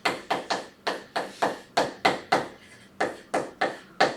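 Writing on a classroom board: a quick run of sharp taps, each with a short scrape, about four a second, as the distributive law is written out.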